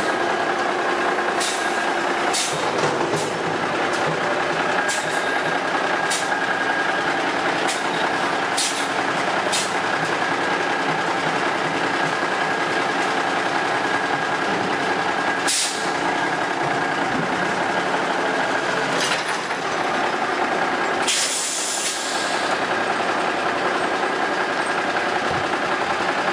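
1985 White front-loader garbage truck working a dumpster: the engine runs steadily with a high hydraulic whine as the arms bring the emptied container down, with repeated metallic clanks and bangs from the dumpster and forks. A short air hiss comes late on.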